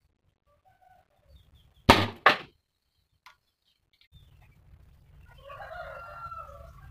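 Two sharp cracks about half a second apart as a popsicle-stick slingshot's rubber bands are let go and the shot flies. Later a low hum and a drawn-out call sound in the background.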